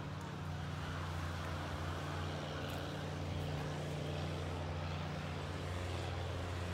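Steady low hum of speedboat engines running in the bay, with even pitch lines and no breaks.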